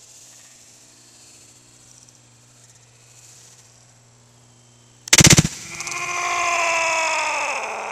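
A sledgehammer smashes into a plastic gallon jug of milk about five seconds in: one short, very loud crack. A long, falling holler follows.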